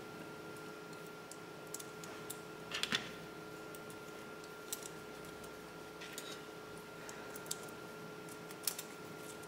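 Sparse light metallic clicks and taps of small steel socket head cap screws being picked up and fitted by hand into an aluminium bracket and swivel hub, with a small cluster about three seconds in. A faint steady hum runs underneath.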